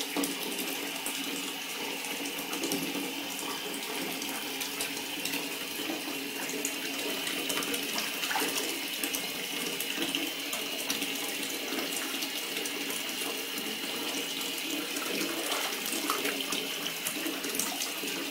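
Tap water running steadily into a bathtub while a cat is washed by hand.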